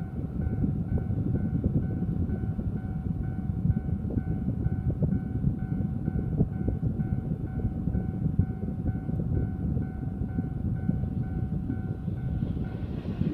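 Japanese level crossing warning bell ringing in an even, repeating electronic ding over a steady low rumble. Near the end the hiss and rumble of an approaching Choshi Electric Railway train start to come through.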